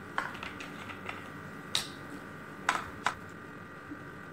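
Plastic vinegar bottle being handled as its cap is twisted off and it is tipped to pour: a scattering of light plastic clicks and knocks, the sharpest about two, two and three-quarter, and three seconds in.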